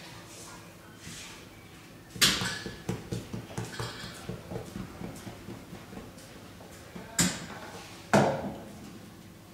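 Knocks and taps of hands working a rope of dough on a wooden board: a sharp knock about two seconds in, then a run of quick light knocks for a few seconds, and two more sharp knocks near the end.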